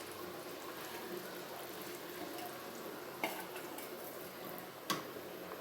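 Potatoes in spiced water simmering in a pan as the water cooks off: a soft, steady bubbling with two short clicks, a little past three seconds and again near five seconds.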